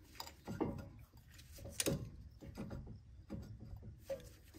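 Faint, irregular metallic clicks and scrapes of a steel C-clamp being handled and its screw turned against the old brake pad, pressing the pistons back into a brake caliper. One click about two seconds in is a little louder than the rest.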